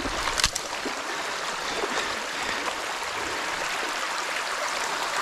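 Creek water running steadily through a breach in a beaver dam, an even rushing trickle. A brief knock sounds about half a second in.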